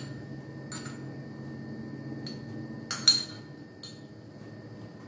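A metal spoon scraping and clinking against a small ceramic sauce jug while scooping out thick tahini. A few light clinks, with the sharpest, loudest one about three seconds in.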